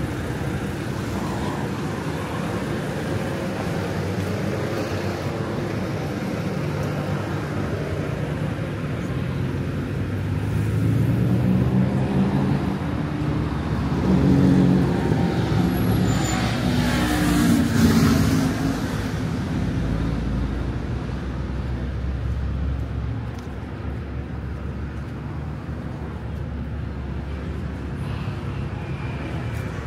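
Street traffic: a steady hum of motor vehicles, with vehicles passing close by in the middle, loudest at about halfway through, before it settles back to the background hum.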